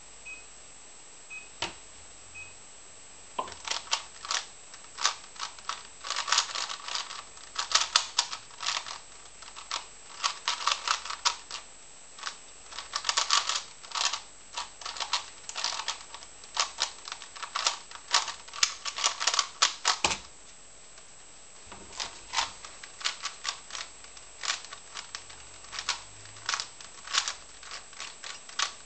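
A 3x3 Rubik's cube being turned very fast in a speedsolve: rapid runs of plastic clicks and clacks from the turning layers. They start a few seconds in and stop with a single knock at about 20 seconds. After a short pause, slower turning resumes.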